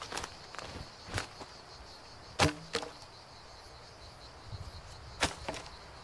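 A handful of sharp cracks and knocks of dry dead wood being handled, the loudest about halfway through with a brief ring after it. A faint, steady high insect buzz runs underneath.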